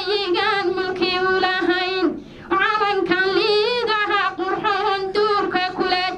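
A woman singing into a microphone, a single voice holding wavering notes, breaking off briefly about two seconds in before carrying on.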